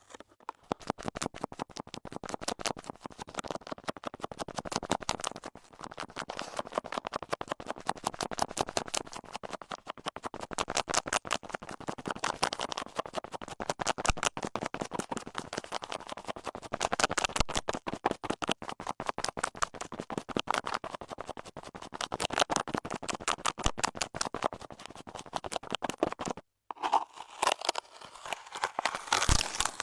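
Close-miked ASMR scratching: a dense run of quick crackly strokes, many a second, swelling and easing in waves, with a short break near the end before it starts again.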